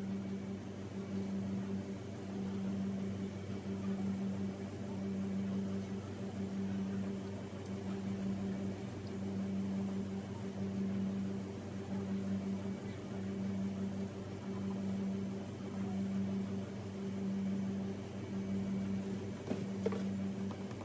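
A steady low machine hum that swells and dips about once a second, with a single faint tap near the end.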